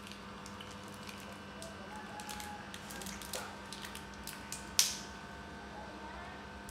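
Small crinkles and clicks of a plastic packet being handled, with one loud, short hiss about five seconds in.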